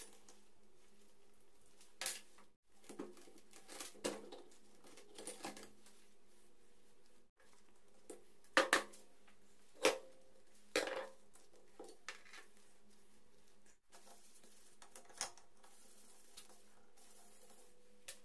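Metal engine parts and tools of a Suzuki GS 150 engine teardown clinking and knocking as they are handled: a scattering of short, sharp metallic clinks, the loudest a few about halfway through.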